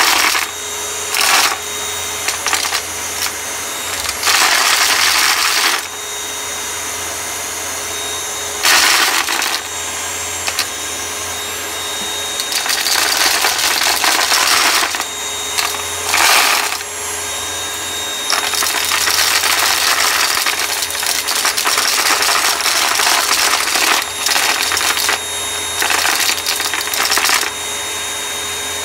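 Vacuum cleaner running with a steady motor hum while it sucks up hard, crunchy debris, which crunches and rattles through it. The crackling surges louder in several bursts of a second or two, the longest a few seconds long past the middle.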